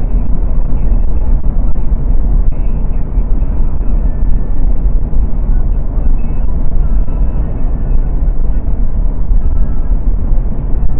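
Steady low road and engine rumble heard inside a Mercedes-Benz car cruising at highway speed.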